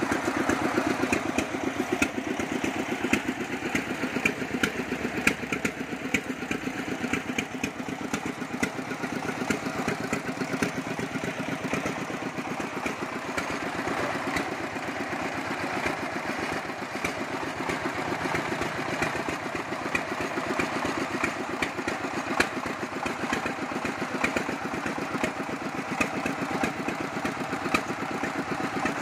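Horizontal single-cylinder diesel engine of a công nông farm vehicle running steadily, with a rapid, even train of firing pulses.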